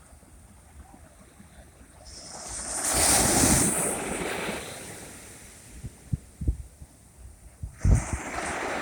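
Sea waves breaking on the shore: one wave swells and crashes about two seconds in, then washes away over a couple of seconds, and the next breaks near the end. Wind buffets the microphone with low thuds between them.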